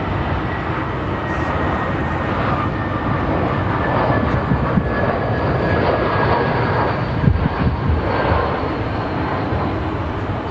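Jet airliner engines: a steady rush of noise with a faint high whine that drops slowly in pitch, growing louder through the middle and easing toward the end.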